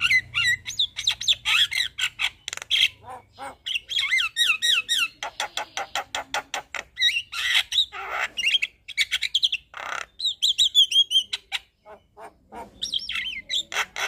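Javan myna singing in full song: a fast, varied run of clicking notes, quick whistled up-and-down phrases and a few harsh squawks, with a short pause near the end.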